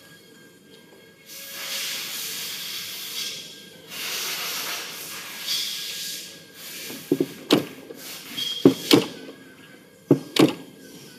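Hand-lever cold welding machine for fine copper and aluminium wire: a rustling hiss first, then from about seven seconds in sharp metallic clacks, three quick pairs about a second and a half apart, as the lever and dies are worked.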